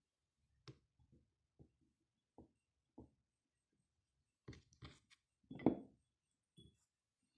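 Slices of ginger and lime being set into a small jar: about nine soft, separate knocks and taps, the loudest a little past halfway.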